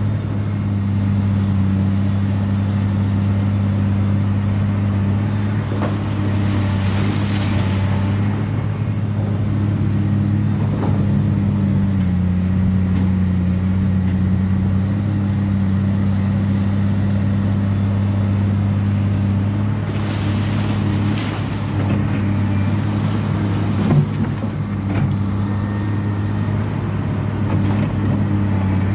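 Heavy diesel engine of an excavator running at a steady speed, with a few brief louder rushes and a single sharp knock near the end.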